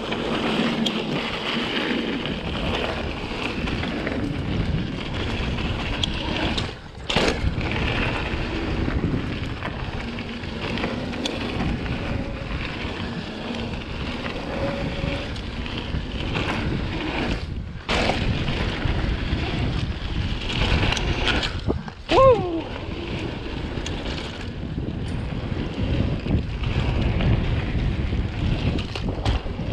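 Mountain bike riding fast down a dirt singletrack: a steady rush of wind over the handlebar-mounted camera's microphone mixed with tyre and trail noise, broken by a couple of sharp knocks and, about three-quarters of the way through, a short falling squeal.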